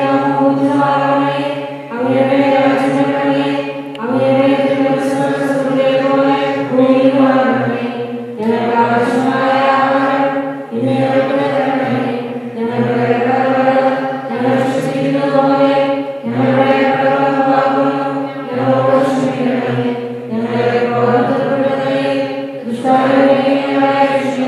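A priest's male voice chanting a Malayalam liturgical prayer on sustained, sung notes. The phrases last about two seconds each, with short breath gaps between them.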